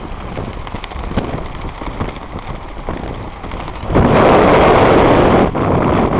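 Wind rushing over a helmet microphone during a parachute jump in the rain, with scattered sharp clicks and crackles. The wind noise drops lower, then gusts up loudly about four seconds in and falls back shortly before the end.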